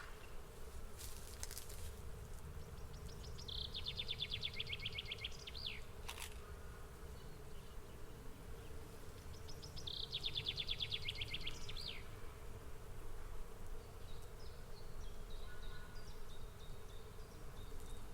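A swarm of bees buzzing in a steady hum. Twice a bird sings a short, rapid trill over it, each ending in a quick downward slur.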